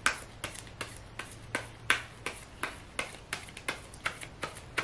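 A deck of tarot cards being shuffled overhand: a steady run of short soft slaps as small packets of cards drop onto the pile, about three a second.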